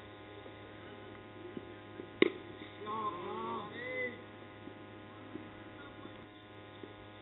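A cricket bat strikes the ball once, a single sharp crack about two seconds in. It is followed by a second of shouted calls between the players as the batsmen set off on a run. A steady low hum runs underneath.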